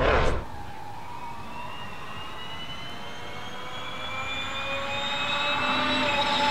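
Audi RS Q e-tron E2 rally-raid car's electric drivetrain whining as it accelerates, a high whine with several tones rising slowly in pitch and growing louder as it comes closer. A louder passing car sound cuts off abruptly about half a second in.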